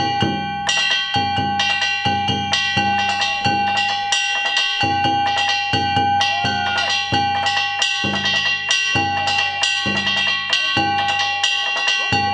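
Danjiri festival accompaniment (narimono): taiko drums and small metal hand gongs struck in a fast, steady rhythm, with a high held tone sounding over it off and on.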